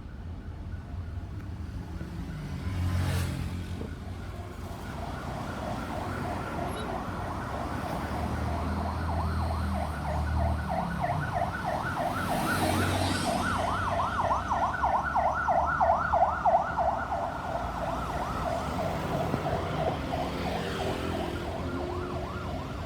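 Ambulance siren in a rapid yelp, its pitch swinging up and down several times a second. It comes in about five seconds in, grows louder and then fades away near the end, over the rumble of road traffic.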